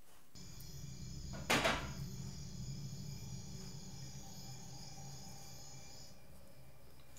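Horror-film soundtrack playing from a television: a steady low drone with thin high tones above it, hit by a sudden loud crash about a second and a half in. The high tones stop about six seconds in and the drone fades out.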